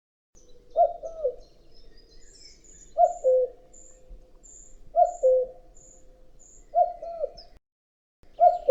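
Male common cuckoo calling its two-note 'cuck-oo', the second note lower, repeated about every two seconds. Faint high chirps from another small bird sound in the background.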